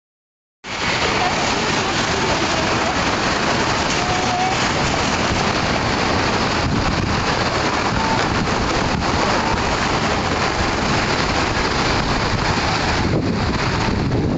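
Typhoon wind and heavy rain as a loud, steady rush, with wind buffeting the phone's microphone. It starts abruptly about half a second in.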